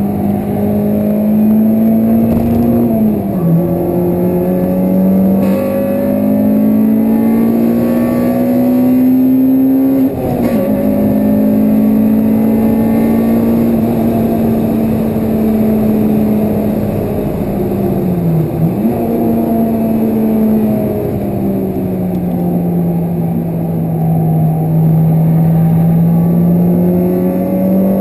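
Honda Civic Type R's four-cylinder engine heard from inside the cabin, driven hard on track: the note climbs under load, falls sharply on an upshift about ten seconds in, dips and snaps back up on a downshift around eighteen seconds, then eases and builds again near the end. Road and wind noise run underneath.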